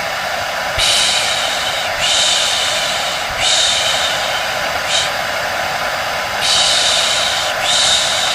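A hair dryer running steadily under a person's repeated long 'shh' shushes, about six in a row at roughly one-and-a-half-second intervals: a white-noise soothing sound used to lull a baby to sleep.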